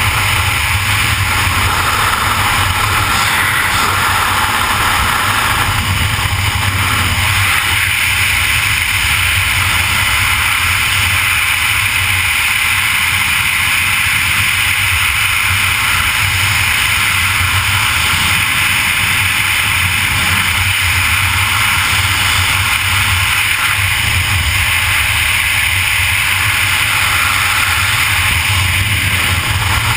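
Loud, steady rush of freefall wind over a GoPro's microphone during wingsuit flight.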